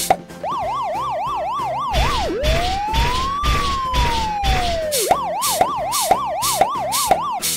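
Police car siren sound effect. It starts about half a second in with a fast yelp, changes to one slow wail that rises and falls, then goes back to the fast yelp. Under it runs a steady beat of about two thumps a second.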